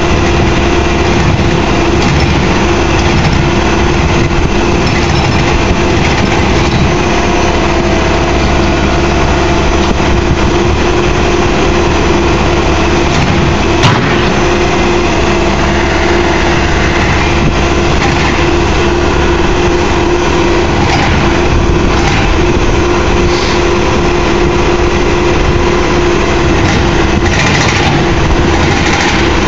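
Backhoe loader's diesel engine running steadily and loudly under hydraulic load as the machine holds itself up on its two buckets, with a constant humming tone over the engine noise. A single sharp knock about halfway through.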